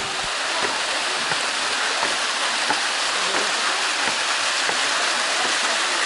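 Waterfall pouring over a rock face into a stream: a steady, even rush of falling water.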